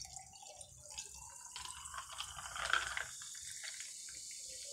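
Sprite, a lemon-lime soda, poured from a bottle into a glass jar packed with ice, splashing and fizzing. The splash is loudest a little past the middle and settles into a steady fizz.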